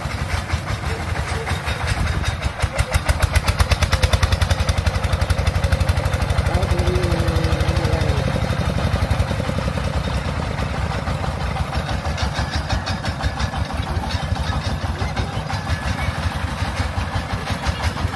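Single-cylinder diesel engine of a công nông farm cart running with a fast, even chugging. It gets louder about two to three seconds in, then eases back to a steadier run.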